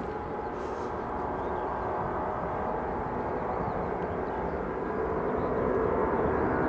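Airbus A330-200F freighter's twin turbofan engines during takeoff: a steady jet engine noise with faint whining tones, growing slowly louder.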